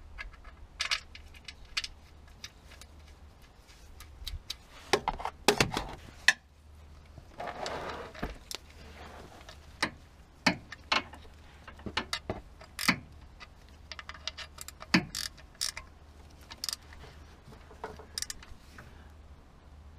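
A wrench clicking and clinking against a fastener at a car's oil sump: scattered, irregular sharp metallic clicks, some ringing briefly, with a little scraping and handling noise in between.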